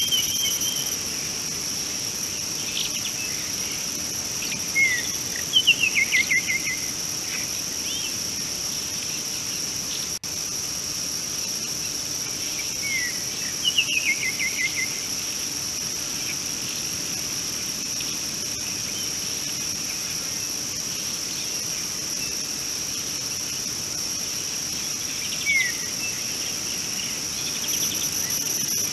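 Steady, high-pitched drone of insects in the bush, with a bird calling over it: a series of short descending notes about five seconds in, another series around fourteen seconds, and a single note near the end.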